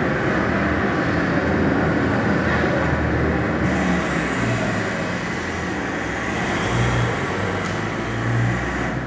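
Steady city street traffic noise, cars and other vehicles going by with a low rumble that swells and fades, on the soundtrack of a film played back in a hall.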